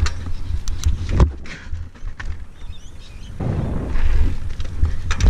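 Mountain bike riding over rough concrete: tyres rolling and heavy wind rumble on the action camera's microphone, with sharp knocks from the bike right at the start, about a second in and near the end.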